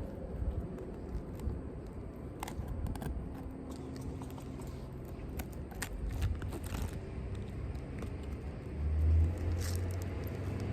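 Scraping and scattered small clicks of a roofing tool working an old ELK Raised Profile asphalt shingle and its nails loose on a roof. A low steady hum comes in near the end.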